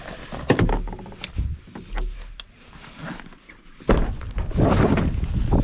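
A few sharp knocks and low thumps, then from about four seconds in a louder continuous noise.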